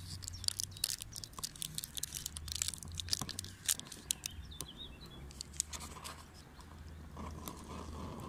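A thin wooden stick stirring a drink in a metal camping mug, with quick irregular clicks and scrapes against the cup's side that die away after about five seconds.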